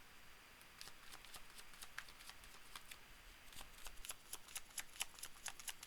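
Tarot cards being shuffled by hand, a quiet patter of light card clicks that starts about a second in and comes faster and denser after about three and a half seconds.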